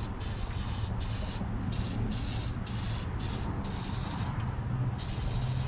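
Aerosol can of oven cleaner (lye) hissing in a series of bursts, a long spray first, several short ones, then another long one near the end. It is being sprayed on as a second coat to degrease the drum brake assembly. A steady low hum runs underneath.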